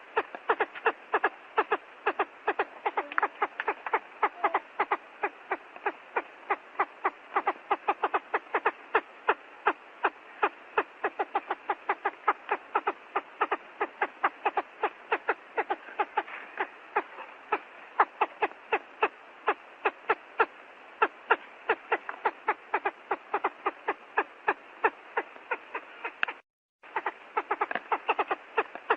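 Quail calling: a rapid, continuous train of sharp clicking pulses, about four to five a second, broken by a brief gap near the end.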